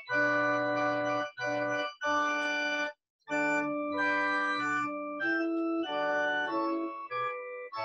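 Organ playing held chords in short phrases over low bass notes, with a brief full stop about three seconds in.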